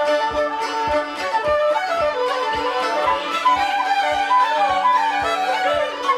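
Irish traditional dance tune played by fiddle and wooden flutes together in a session, with a low beat about twice a second keeping time.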